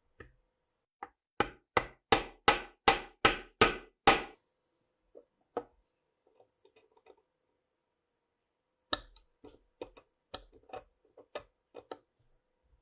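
Tapping with a small hammer: about eight loud, quick blows at an even pace, then a pause and a run of lighter, uneven taps near the end.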